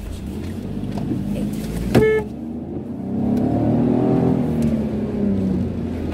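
Car running, heard from inside the cabin. About two seconds in a car horn gives one short toot, then the engine note rises and falls again over a couple of seconds.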